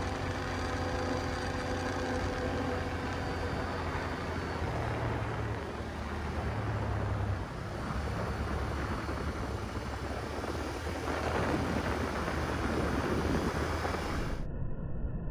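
Quad (ATV) engine running over a steady rushing noise. Its pitched engine note is clearest in the first few seconds and is then buried under the rush.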